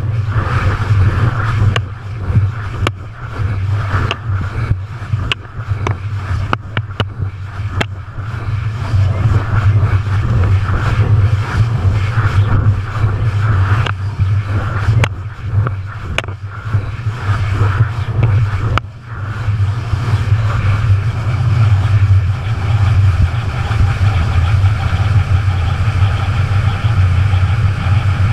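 Aircraft engine drone, a steady low rumble with a rushing noise above it, broken by scattered clicks and knocks.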